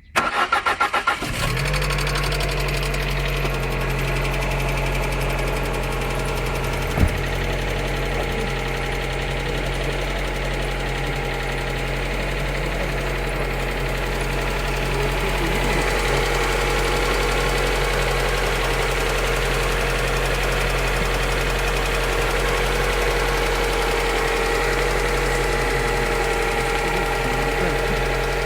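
Lada Granta Sport's engine cranked on the starter for about a second, catching and settling into a steady idle. It runs with the engine knock that the owner is recording as a fault, and there is a single sharp click about seven seconds in.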